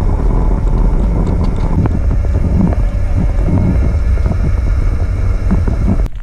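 Harley-Davidson motorcycle being ridden at full speed, its engine running under heavy wind buffeting on the microphone. The noise cuts off suddenly near the end.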